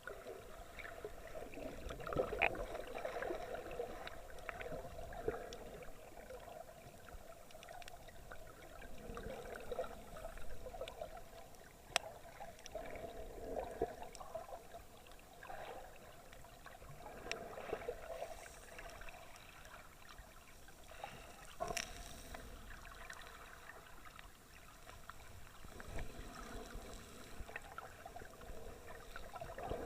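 Muffled sloshing and gurgling of seawater around an action camera's waterproof housing, with a few sharp clicks.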